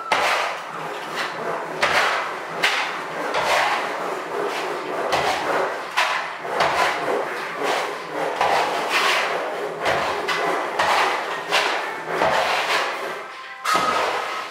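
Hand plastering trowel spreading finishing plaster across a wall, in repeated irregular scraping strokes.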